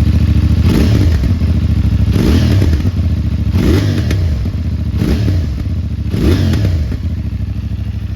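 CFMOTO 450NK's parallel-twin engine idling on its stock exhaust shortly after a cold start, blipped up four times, each rev rising and dropping straight back to idle.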